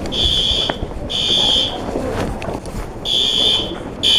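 School fire alarm horns blaring a high buzzing tone in the temporal-three evacuation pattern. Two blasts about a second apart, a pause of over a second, then the next group of blasts begins.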